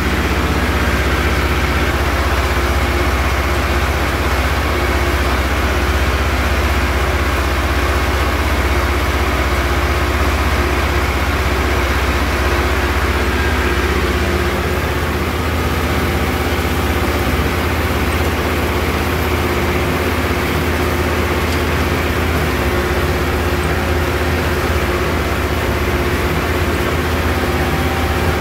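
Tractor engine running steadily from the driver's seat, with a constant low rumble, while it tows and drives a Fahr KH 4 rotary hay tedder.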